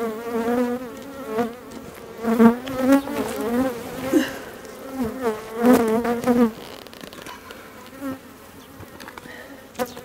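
Honey bees buzzing as they fly close past the microphone, the hum wavering in pitch and swelling and fading as single bees pass. The buzzing thins out after about six and a half seconds.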